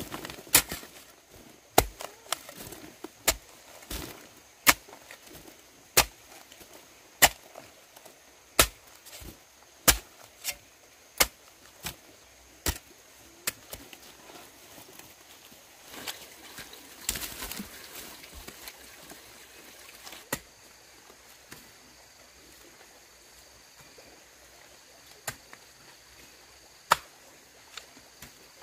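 Repeated sharp chopping strikes, like a blade hitting wood: about one a second for the first dozen seconds, then only a few scattered strikes.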